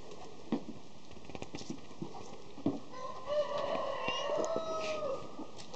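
A rooster crows once, starting about three seconds in: a single drawn-out crow of about two seconds that trails off at the end. A few brief clicks come before it.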